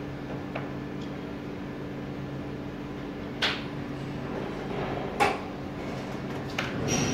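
Steady low hum with a few sharp knocks, the loudest about three and a half and five seconds in; the sound grows louder and rougher near the end.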